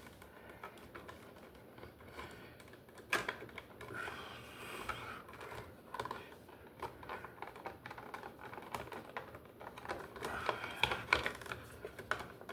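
Irregular light clicks and rattles of stripped copper wires and hand tools being handled while the wires in an electrical box are twisted together for wire nuts.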